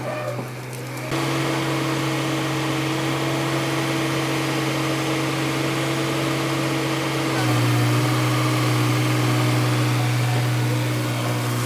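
Tata Hitachi EX200 excavator's diesel engine and hydraulics running steadily under load, a low drone that gets louder about a second in and again around seven seconds in.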